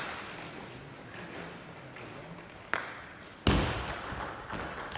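Celluloid table tennis ball bouncing: first quiet, then a sharp tick, a louder thud about three and a half seconds in, and several light pings as a player bounces the ball before serving.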